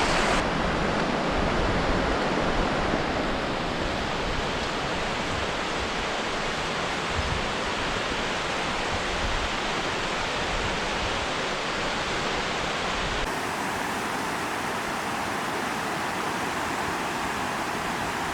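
Steady rush of a waterfall and river rapids, a dense even roar of falling water. About thirteen seconds in it abruptly turns thinner and more hissy, with less low rumble.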